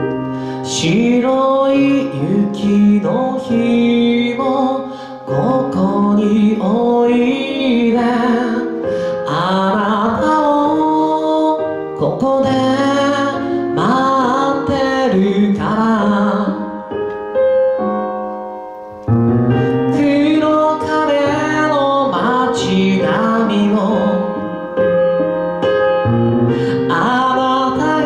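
A solo singer performing a ballad live into a handheld microphone, accompanied by a digital stage piano. The voice rests for a couple of seconds past the middle while the piano carries on, then the singing resumes.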